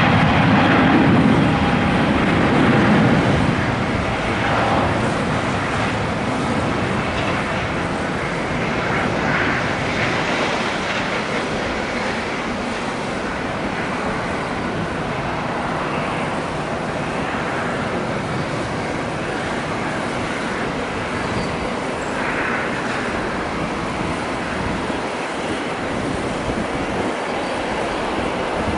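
British Airways Airbus A380's four Rolls-Royce Trent 900 jet engines at takeoff thrust during the takeoff roll and rotation: steady, loud jet engine noise, a little louder in the first few seconds.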